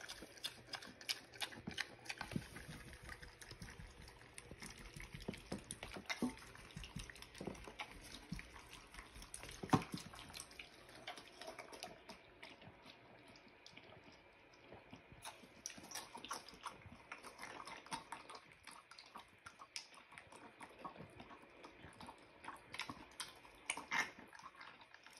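Mini pig eating wet slop from a stainless steel bowl: fast, wet slurping and smacking, with many irregular clicks and knocks as its snout works in the metal bowl, one knock about ten seconds in louder than the rest.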